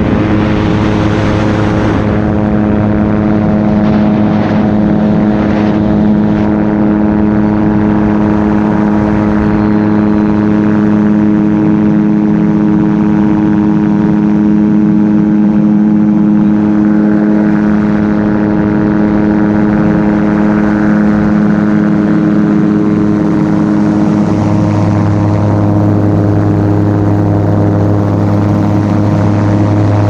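Light aircraft's engine and propeller running steadily in flight, heard from on board. The engine tone shifts about 24 seconds in, its lowest note growing stronger.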